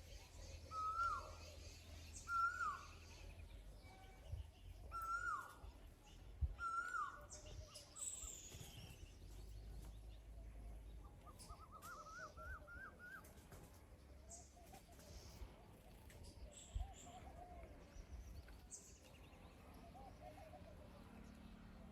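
Birds calling: four short, loud calls that each start high and slide down, in the first seven seconds, then a quick run of about eight rising notes about twelve seconds in, and softer calls after that.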